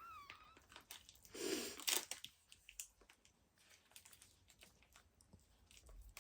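Faint rustling and crinkling with scattered small clicks, as bedding or whelping pads are handled. There is a brief high squeak right at the start and a short soft swell of noise about a second and a half in.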